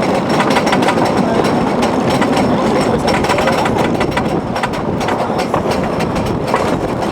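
Wooden roller coaster train rattling and clacking along its wooden track, a steady rumble dotted with many sharp clicks.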